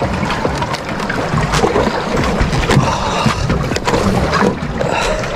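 Wind and water noise around a small fishing boat, with scattered knocks and clatter from handling on board.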